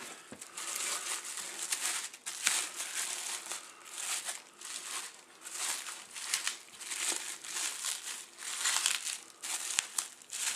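Bubble wrap being cut and pulled off, crinkling and rustling in repeated bursts, after a sharp click at the start.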